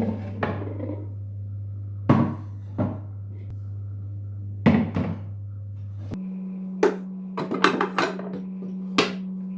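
Kitchenware knocking and clattering: single sharp knocks a few seconds apart, then a quick run of several knocks in the last few seconds, over a steady low hum that shifts pitch about six seconds in.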